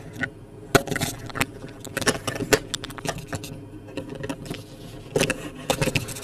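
Handling noise from a webcam being turned and repositioned over sheets of drawing paper: irregular clicks, taps and light rustles, with a cluster of louder knocks about five seconds in.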